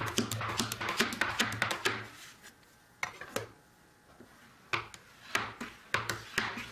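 Steel burnisher being worked quickly along the edge of a steel cabinet scraper to raise the burr: rapid metal-on-metal strokes, about five or six a second. The strokes stop about two seconds in, with only a couple of single clicks, then start again near the end.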